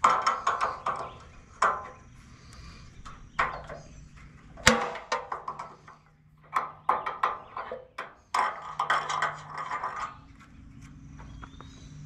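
Wrench on the sawmill rail's adjustment bolts, loosening them: short bursts of rapid clicking with one sharper knock about halfway through.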